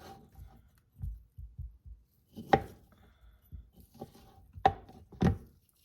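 Knife slicing grilled chicken on a cutting board: a few soft low thumps, then three sharp knocks of the blade against the board.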